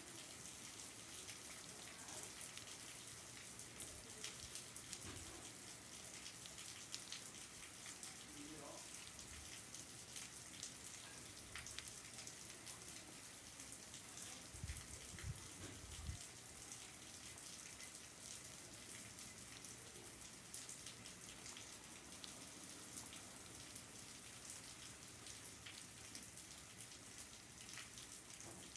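Steady rain falling: an even hiss of drops with many small, crisp drip ticks scattered through it.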